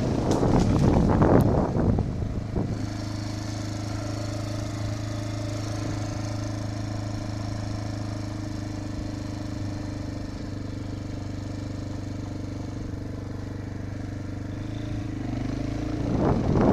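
Enduro motorcycle engine idling steadily at one even pitch for most of the stretch. Gusty wind noise buffets the microphone for the first couple of seconds and again near the end.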